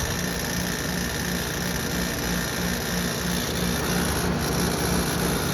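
Outdoor air-conditioning condensing unit running: a steady rush of fan noise with a low hum that throbs about three times a second.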